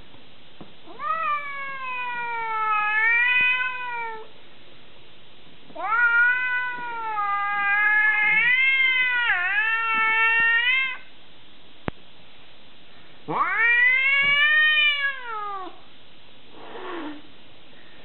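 Long-haired domestic cat yowling: three long, drawn-out calls that rise and fall in pitch, the middle one the longest, with a short faint one near the end.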